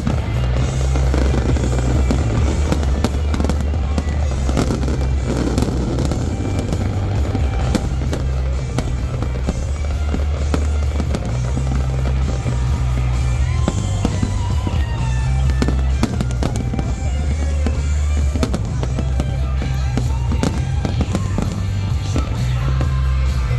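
Fireworks bursting and crackling continuously over music with a heavy bass line.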